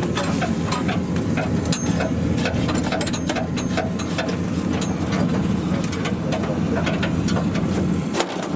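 Kubota DC70 combine harvester's diesel engine running steadily at close range, with a constant run of irregular small clicks and knocks from the machinery.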